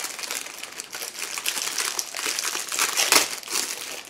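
Plastic Twinkie wrappers crinkling as two individually wrapped snack cakes are opened by hand, a dense crackle that peaks about three seconds in.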